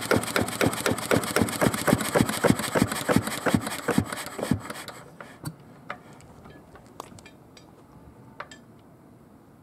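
Yanmar NK2 single-cylinder diesel stationary engine running with an even beat of about four to five firing strokes a second. It is shut down, and the beat slows and stops about four and a half seconds in. A few faint clicks follow.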